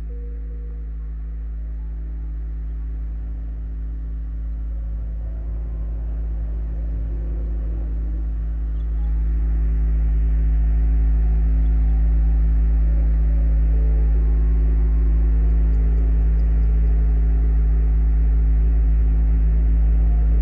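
Dark, atmospheric synthesizer drone from a Make Noise 0-Coast and Strega: a heavy low rumble under several held, gong-like tones. It swells slowly and steps up in loudness about nine seconds in.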